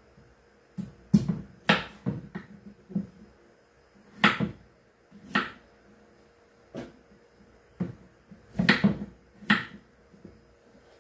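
Knife cutting potato against a wooden cutting board: about a dozen irregular sharp knocks, some in quick pairs, over a faint steady hum.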